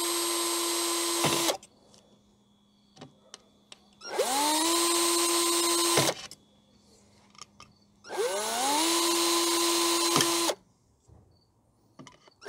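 Cordless drill drilling pilot holes into an aluminum boat gunwale, in three runs of about two seconds each. Each run spins up with a rising whine, then holds steady before stopping. There are short pauses between runs with a few small clicks.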